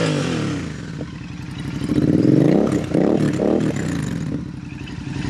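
Royal Enfield Super Meteor 650's parallel-twin engine running through an aftermarket Zard exhaust. Revs drop back right at the start, then a few throttle blips rise and fall about two to three and a half seconds in before it settles back to idle.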